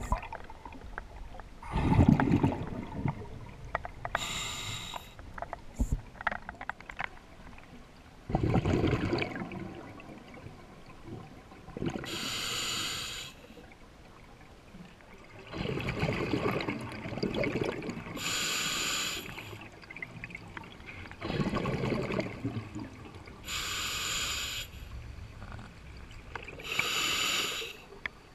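Scuba diver breathing through a regulator underwater: a short hissing inhale alternating with a longer bubbling exhale, about five breaths, one every five to six seconds.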